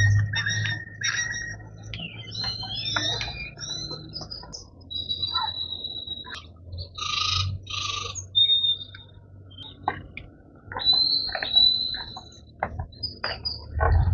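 Several birds chirping and whistling: quick repeated chirps mixed with a few longer whistled notes held on one pitch.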